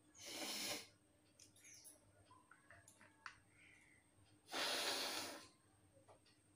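A woman forcefully blowing air out through her nose, one nostril pinched shut: a short hard blast at the start, then a longer, louder blast about four and a half seconds in.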